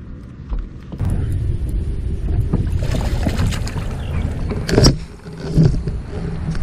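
Largemouth bass thrashing and splashing at the surface as it is scooped into a landing net. The water noise and knocks of the net handle sit right at the microphone, with the loudest splash about five seconds in.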